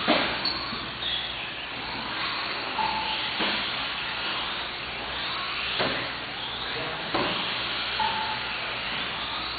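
Small 1/18-scale electric RC cars racing around an indoor track, a steady whirring hiss of motors and tyres, with a few short knocks and a couple of brief beeps.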